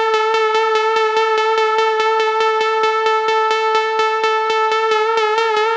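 Serum software synthesizer playing one sustained bright lead note from a basic wavetable oscillator, with a steady click about six times a second. About five seconds in, the note starts to wobble slightly in pitch as the LFO routed to the oscillator's fine tune is pushed harder.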